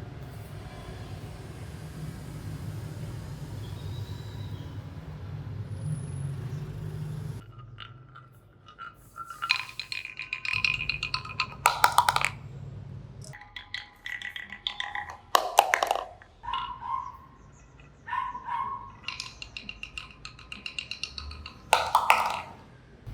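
Marbles rolling down a wooden marble run: a steady low rumble at first, then about seven seconds in, irregular clusters of clicks and clinks as the marbles knock against the track pieces, with short ringing, xylophone-like tones.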